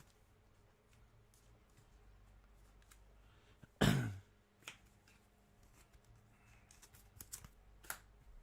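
Trading cards and their packaging being handled: faint clicks and rustles, with one short, louder sound about four seconds in and a few sharper clicks near the end.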